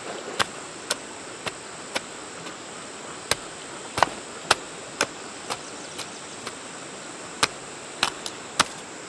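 A hand hoe chopping into the soil, a series of irregular sharp knocks about one or two a second. Under it runs a steady high insect buzz.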